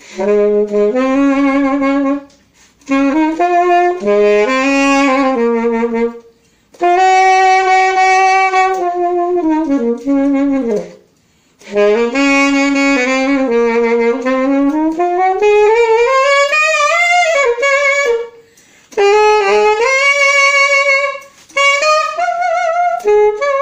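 Alto saxophone playing short melodic phrases split by brief breath pauses, with slides up and down between notes and vibrato on some held notes. The phrases are played to show dynamics, how loud or soft a passage is played.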